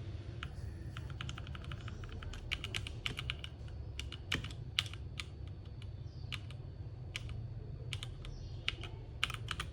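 Keys of a compact mechanical gaming keyboard being pressed in quick irregular runs of clicks with short pauses, over a steady low hum.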